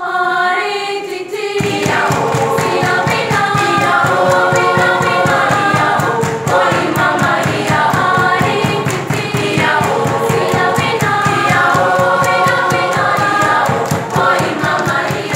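A school choir of young voices singing in several parts, joined about a second and a half in by a steady, rhythmic beat of hand claps.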